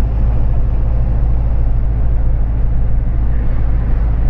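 A BharatBenz lorry's diesel engine and tyres while driving on the road: a steady, loud low drone that holds unchanged.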